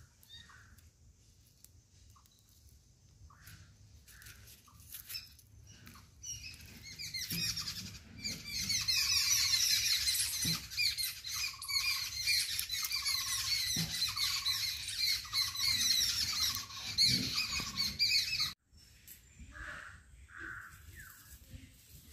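Many birds chirping together, a dense chatter of quick calls that builds up about seven seconds in and stops abruptly a little before the end.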